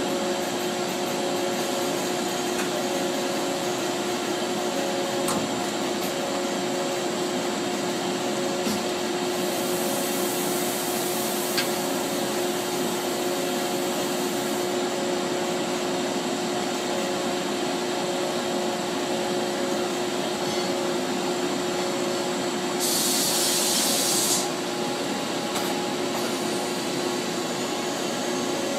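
Charmilles Roboform 40 EDM machine running through its C-axis move and tool change: a steady whirring hum with a few held tones. A hiss comes in about ten seconds in and lasts some five seconds, and a louder hiss follows later for about a second and a half.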